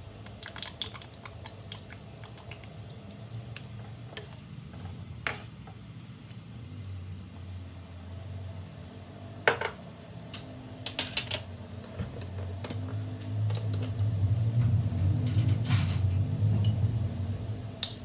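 Chicken broth heating in a wok on a stove: a low rumble that swells and grows louder in the second half, with a few sharp clinks and taps, the loudest about halfway through.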